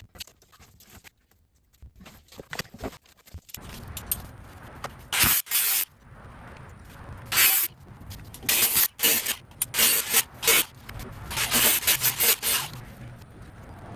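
A string of short, loud scraping and rubbing noises, roughly a dozen strokes each under a second long, starting about four seconds in after a quieter stretch of faint ticks.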